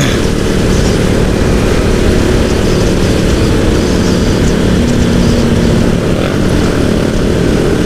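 Yamaha R15 motorcycle's single-cylinder engine running steadily at cruising speed, mixed with a constant rush of wind noise.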